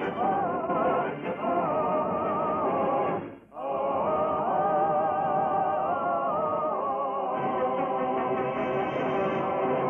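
Operatic-style singing with strong vibrato over an orchestra, from a 1950 radio musical broadcast, briefly breaking off about three and a half seconds in.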